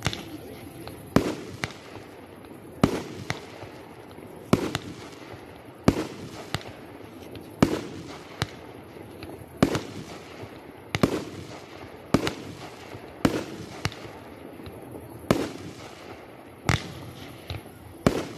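Fireworks shells bursting in the air, a sharp bang roughly every second and a half with smaller pops in between, each bang trailing off in a short echo.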